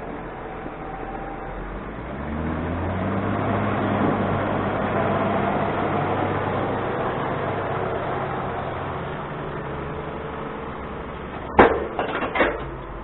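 A vehicle engine running, getting louder about two seconds in and then slowly easing off. Near the end comes one sharp clunk followed by a few quick knocks.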